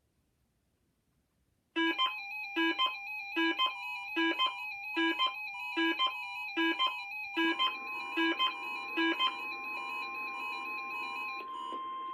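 Weather radio sounding its alert for the weekly NOAA test: a repeating electronic beep pattern, a little more than one beep a second, starts suddenly after a short silence. About halfway through, a steady warning alarm tone joins it. Near the end the beeping stops and a single steady higher tone holds.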